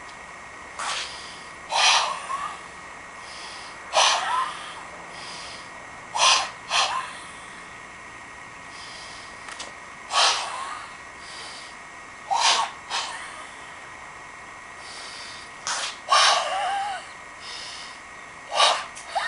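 Sharp, forceful breath bursts of White Crane kung fu: a sneeze-like hiss or grunt with each movement of the SanZhan form, about a dozen spaced a few seconds apart, several of them in quick pairs.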